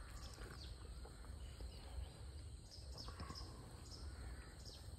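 Faint outdoor ambience: a steady low wind rumble on the microphone, with a few faint, brief bird chirps.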